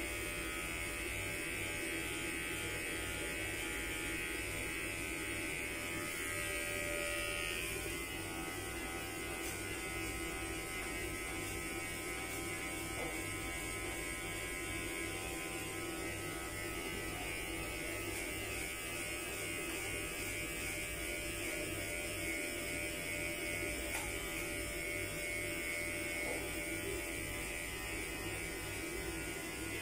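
Electric hair clippers running steadily as they cut hair at the back of the head and neck.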